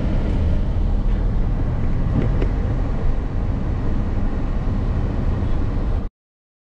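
Car driving along a city road: a loud, steady low rumble of road and wind noise. It cuts off suddenly about six seconds in.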